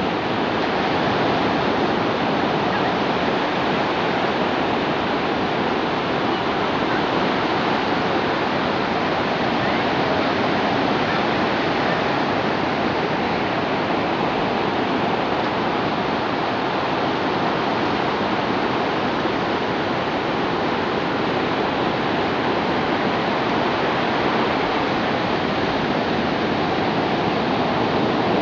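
Ocean surf breaking and washing over a shallow sandy beach: a steady, fairly loud rushing hiss with no distinct events.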